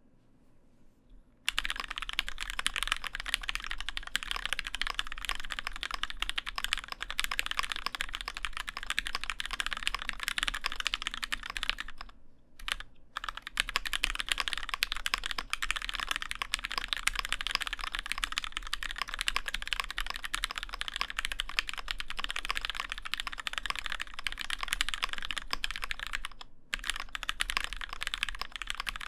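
Continuous fast typing on a custom Alice-layout mechanical keyboard in a solid bonded acrylic case. It has Gateron N1 linear switches (a Gateron Yellow recolor) on a 5 mm clear acrylic plate, with GMK keycaps. The typing starts about a second and a half in and breaks off briefly twice.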